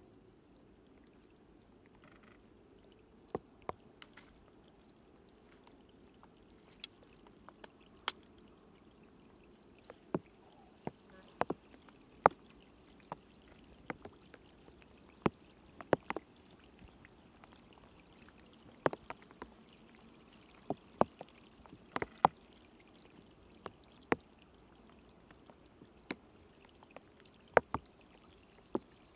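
Dry reed stalks being handled and snapped by hand, giving sharp, irregular clicks roughly once a second over a faint steady hiss.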